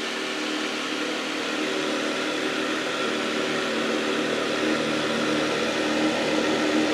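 A small boat's motor running at a steady speed: an even hum under a loud, constant rushing noise.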